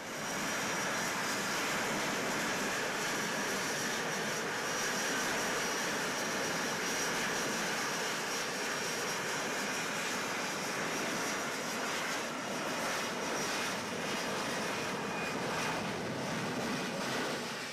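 F-35B jet hovering with its engine and lift fan running: a steady jet roar with a thin high whine over it.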